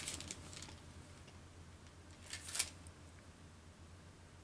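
A brief rustle of paper about two and a half seconds in, a Bible page being turned, over a faint steady room hum.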